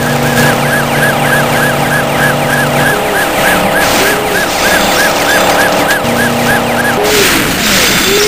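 Dubbed car-chase sound effect: a police siren yelping fast, about four rises a second, over a steady car-engine hum, with a second, slower siren wailing lower from about three seconds in. About seven seconds in, the fast siren stops and a loud rush of noise takes over as a siren tone falls away.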